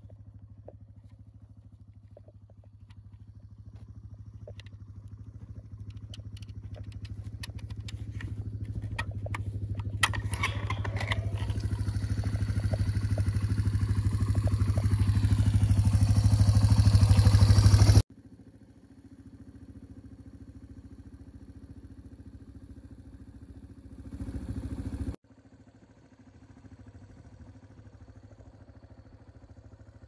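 Farm motorbike engine idling: a steady low hum that grows steadily louder over the first half, with scattered clicks, then drops suddenly to a much quieter level and carries on, with a brief swell and another sudden drop near the end.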